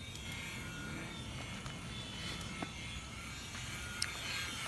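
Small electric motor and propeller of a flying Spider-Man toy helicopter, whirring steadily with a few faint ticks.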